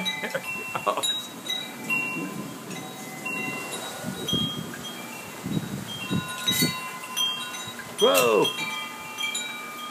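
Wind chimes ringing in the storm wind: many clear metallic notes struck at irregular moments, overlapping and dying away.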